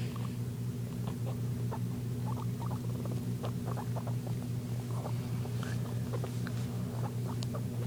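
Guinea pig making many short soft clicks and rustles, scattered irregularly, over a steady low hum.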